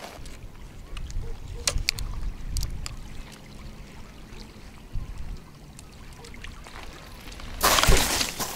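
Small waves lapping at the shoreline with wind rumbling on the microphone, a few light clicks in the first few seconds, and a short, louder rush of noise near the end.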